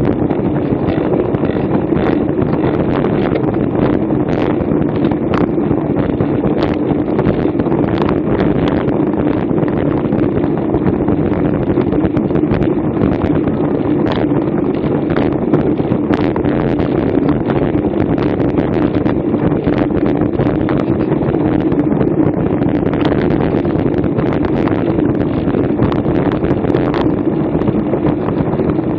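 Wind rushing over a bike-mounted action camera's microphone at racing speed. Under it runs a steady hum from the tyres on the pavement, with many small clicks and rattles from the bike going over rough asphalt.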